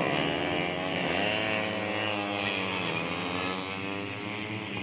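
Racing 150cc four-stroke underbone motorcycles at high revs, several engines overlapping, their pitch rising and falling as they pass, most strongly about a second in and again around the middle.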